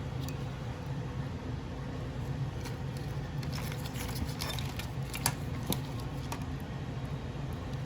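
Under-dash wire harness of a 1976 Cadillac Coupe DeVille being handled: wires and plastic connectors rustling and ticking, with two sharper clicks a little after five seconds in, over a steady low hum.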